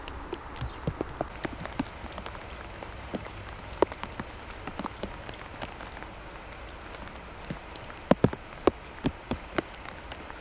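Heavy rain falling steadily, with many sharp, irregular taps of drops scattered through it; the loudest come in a cluster near the end.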